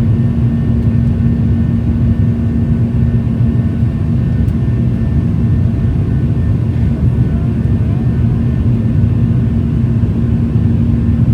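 Steady cabin drone inside a Boeing 737-800 in flight: the rumble of its CFM56-7B engines and the airflow, with a constant low hum under it.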